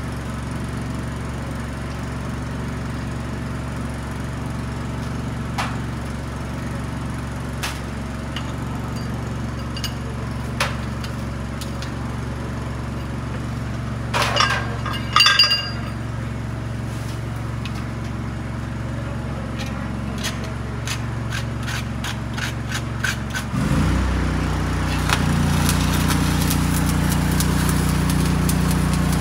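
An engine hums steadily under scattered metal clinks and taps, with a short clatter of clinking in the middle. About 24 seconds in, the engine note dips, then rises and settles louder, and the crackle of arc welding begins.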